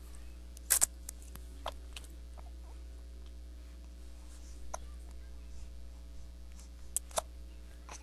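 Short, sharp hiccups at uneven intervals: a quick double one about a second in, single ones shortly after and near the middle, and another pair near the end, over a low steady hum.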